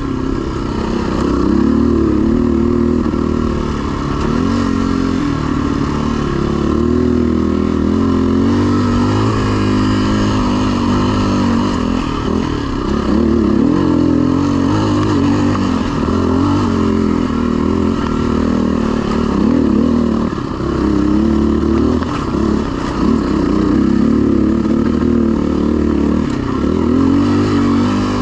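HM Locusta enduro motorcycle engine running as the bike is ridden over a rough trail, its pitch rising and falling continually with the throttle.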